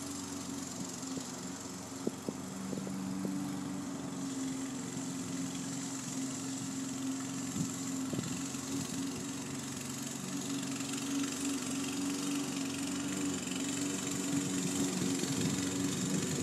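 Walk-behind lawn mower's small engine running steadily as it cuts grass, growing somewhat louder near the end as the mower comes closer.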